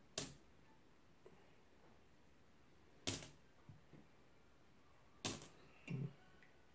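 Nickels clicking sharply as they are set down on a pile of coins on a table: three distinct clicks a couple of seconds apart, with a few faint ticks between them and a softer, duller knock just before the end.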